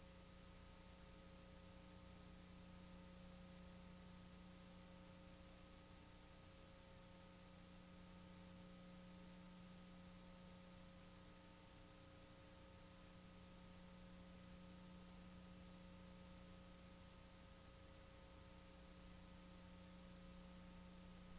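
Near silence: a faint steady hiss with a low electrical hum and a few faint steady tones, the noise floor of a blank recording.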